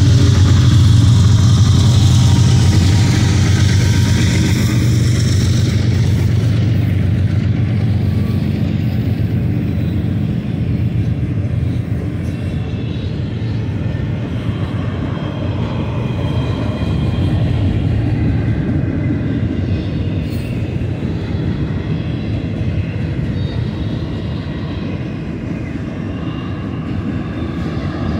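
Diesel locomotives of a BNSF freight train running past with a steady low engine drone that fades over the first several seconds. The steady rumble of autorack cars rolling by on the rails follows.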